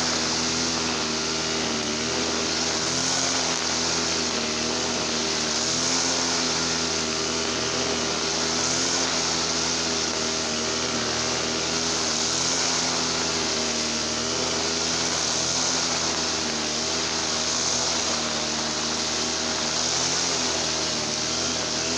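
Easyman TL33 two-stroke brush cutter running at high revs, its engine pitch wavering slightly up and down as the load changes while it cuts lalang grass.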